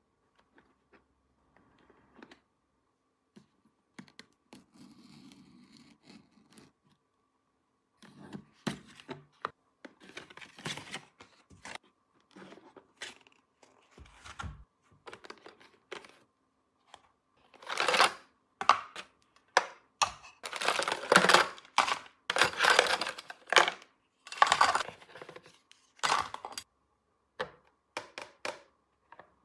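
Plastic toy pieces and packaging being handled during an unboxing. Scattered light clicks and taps come first, then, from about halfway through, louder bursts of crinkling and tearing wrapping.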